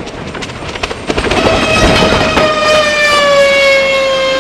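Helicopter crash: clattering and knocking, then from about a second in a loud pitched whine with many overtones that slides slowly down in pitch.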